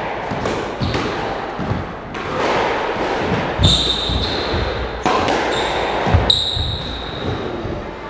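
Squash rally: the ball knocks sharply again and again off rackets and the walls, each knock ringing in the enclosed court, while rubber-soled court shoes give several short high squeaks on the wooden floor.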